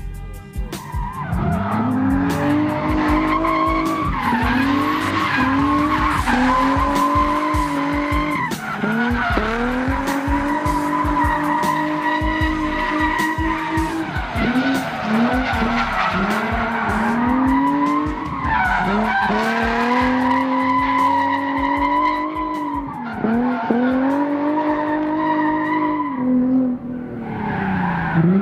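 Nissan 350Z's 3.5-litre V6 engine held at high revs while drifting, with tyres skidding. The engine note climbs, holds high and dips again every few seconds as the throttle is worked through each slide.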